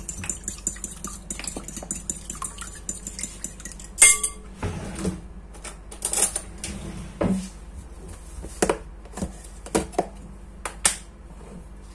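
A fork whisking eggs in a glass bowl, quick clinking against the glass, then a loud clink about four seconds in as the fork is laid down in the bowl. After that, scattered separate clinks and knocks of a spoon and containers being handled.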